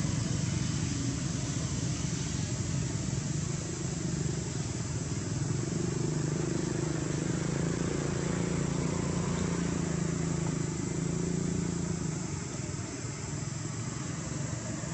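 Steady low rumble of a motor vehicle engine running, easing off a little about twelve seconds in.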